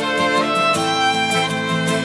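Instrumental music: a melody of held notes changing every fraction of a second over a steady accompaniment.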